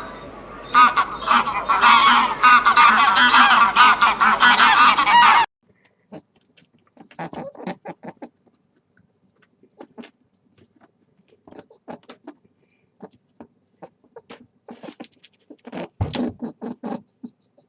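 A flock of geese honking loudly, many calls overlapping, until an abrupt cut about five seconds in; after that, scattered quieter short calls.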